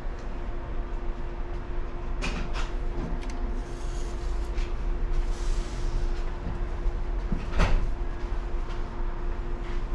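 A small countertop oven's hinged door is opened with a couple of light clicks, then shut several seconds later with a louder sharp knock. A steady hum runs underneath.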